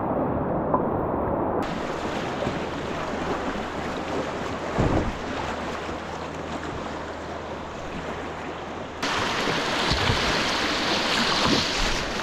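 Rushing river rapids, a steady wash of moving water with wind buffeting the microphone and a low thump a little before halfway. The sound changes abruptly twice, and for the last few seconds it is louder and brighter with water splashing over a kayak's bow as it paddles down the rapid.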